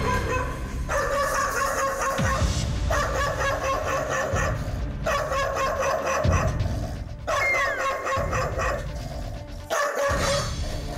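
A large black mixed-breed dog barking loudly in about five volleys of rapid barks. These are wary alarm barks at strangers coming into its home.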